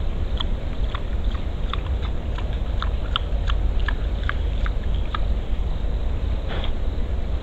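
Wild boar crunching and chewing bait scattered on the ground, a run of short crisp clicks several times a second, over a steady low rumble.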